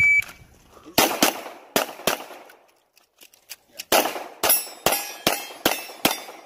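The tail of a shot timer's start beep, then 9mm pistol shots from a Glock 34: four quick shots, a short lull with faint clicks, then a fast string of about eight more.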